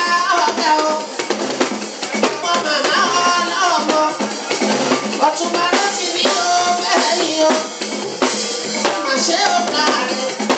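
Live Fuji music: a male lead voice singing into a microphone over dense, busy percussion from drums and shakers.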